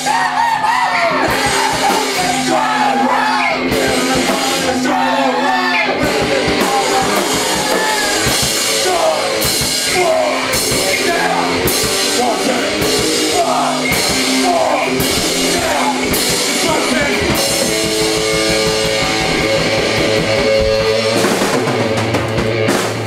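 A rock band playing live: drum kit, guitar and bass, with a wavering vocal line. Near the end the drumming thins out and long held guitar and bass notes ring on.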